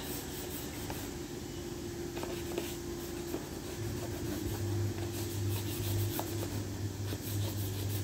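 Hand sanding of body filler on a bus's side skirt panel: a sanding pad rubbing over the panel in repeated strokes. A steady low hum comes in underneath about four seconds in.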